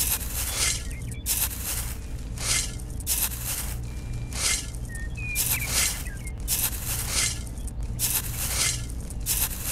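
Miniature toy shovel scraping and digging into wet sandy mud, in repeated gritty strokes about one and a half a second.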